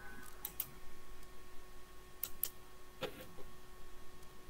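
A handful of light, sharp computer-mouse clicks, two of them close together a little past two seconds in, over a faint steady hum.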